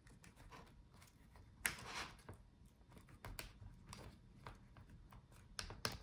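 Faint scattered clicks and light scraping of fingers prying the plastic front bezel of a Lenovo ThinkPad E14 Gen 2 display off its clips and adhesive. There is a sharper click about a second and a half in and another near the end.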